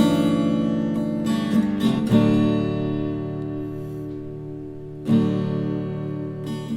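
Acoustic guitar strumming the closing chords of a song. A chord is struck, left to ring and fade, then struck again about two seconds in and again about five seconds in, with a few quicker strums near the end.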